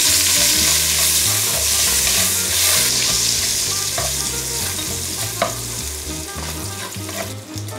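Bayonne ham fat trimmings sizzling as they fry in hot oil in an enamelled cast-iron casserole, being stirred, with a couple of short clicks about four and five seconds in. The sizzle is loudest at first and eases off gradually.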